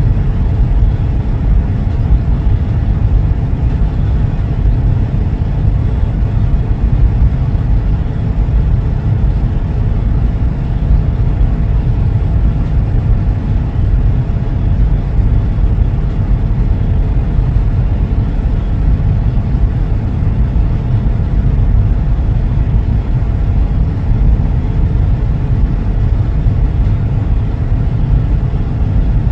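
Wind buffeting the microphone: a loud, steady low rumble with no break.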